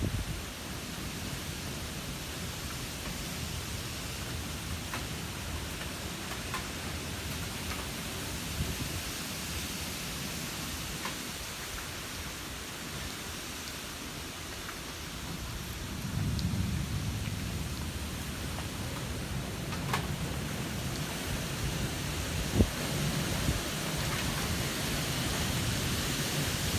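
Steady wind with a low, gusty rumble that grows stronger about 16 seconds in, over an even hiss, with a few scattered sharp ticks.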